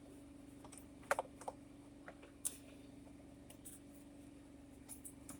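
Scattered light clicks and taps from hand tools and plastic steering-column trim being handled, a few in quick succession about a second in, over a faint steady hum.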